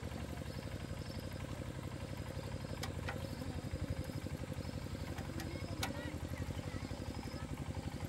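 Single-cylinder diesel engine of a walking tractor running steadily at idle, with a few sharp metal clinks of tools against it.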